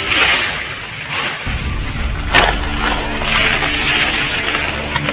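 Hands scraping and crumbling loose soil out of a plastic-lined planting container, with plastic rustling. There is a sharp click about two and a half seconds in, and a low rumble from about one and a half seconds on.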